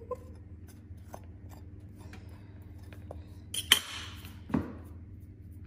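A table knife clinks and scrapes against crockery while butter is spread on a boiled whole cauliflower, with a few light ticks, then a sharp clink about three and a half seconds in followed by a short scrape and a smaller knock, over a steady low hum.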